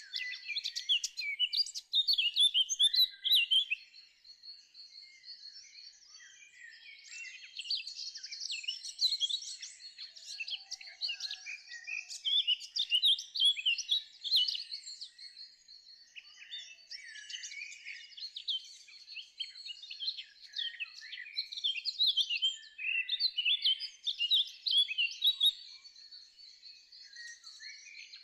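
Birds singing: dense, rapid chirps and trills in phrases a few seconds long, with quieter gaps between them.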